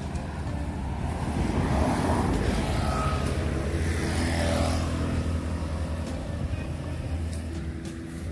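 Motor vehicle engine humming steadily. It grows louder over the first couple of seconds and slowly fades toward the end.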